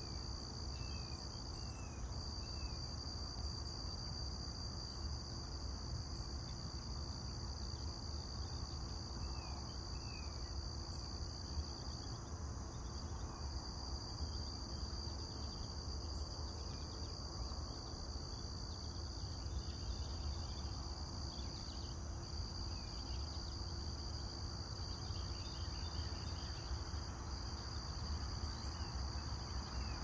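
Steady high-pitched insect chorus, a continuous trill, with a few faint short chirps scattered through it and a low rumble underneath.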